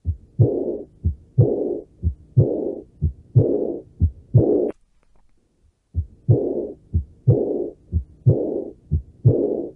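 Simulated heart sounds: a heartbeat about once a second, each low thump followed by a whooshing murmur. The rhythm breaks off for about a second midway, then resumes.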